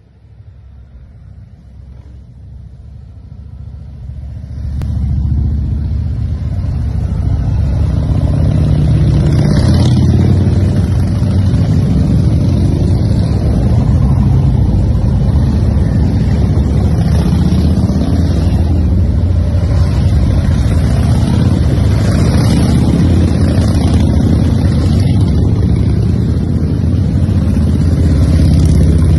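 A long procession of motorcycles riding past, many engines at once with a deep low sound. It builds up over the first five seconds or so as the column arrives, then stays loud and steady as bike after bike goes by.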